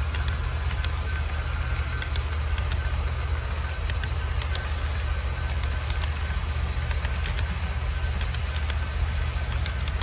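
Model freight train cars rolling past on the layout track, their wheels clicking irregularly over rail joints, over a steady low hum.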